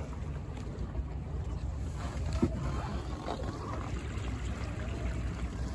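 Wind buffeting the microphone as a Buccaneer 18 sailboat runs under spinnaker, with water rushing and splashing along the hull. There is a brief thump about two and a half seconds in.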